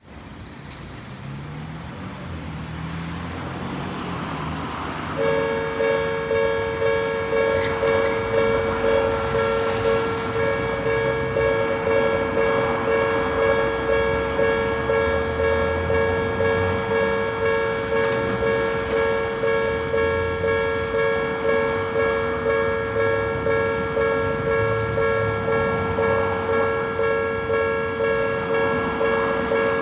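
Japanese railway level-crossing alarm of the old Odakyu type starts suddenly about five seconds in and rings on as a steady two-pitch electronic tone, pulsing evenly. Before it starts, a low rumble grows louder.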